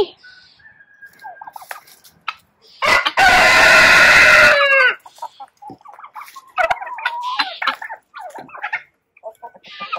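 A rooster crows once, loudly, about three seconds in, holding the call for nearly two seconds and dropping in pitch at the end. Hens cluck in short scattered calls around it.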